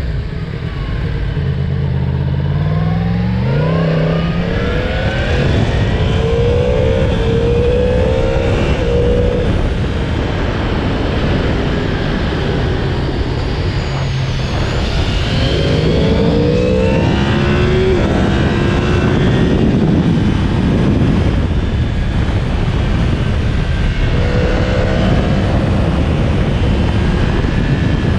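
Yamaha MT-10's crossplane inline-four engine on its stock exhaust, under way, with the revs climbing in several runs and dropping back between them. A steady rush of noise lies under it.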